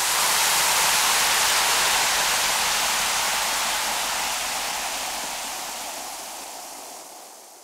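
Carbonated beer fizzing: a steady hiss of bursting bubbles that fades out slowly over several seconds.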